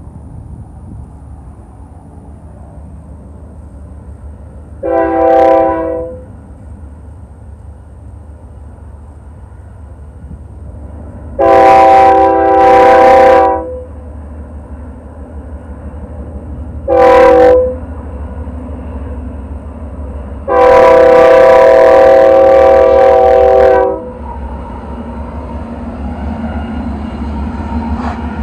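BNSF diesel freight locomotive's multi-note air horn sounding five blasts: a short one, two longer ones close together, a short one, and a final long blast of about three and a half seconds. Between the blasts, wind on the microphone and the rumble of the approaching train, growing louder near the end.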